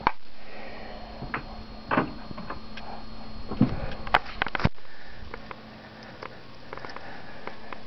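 Handling noises: a few scattered light clicks and knocks as objects and the handheld camera are moved about.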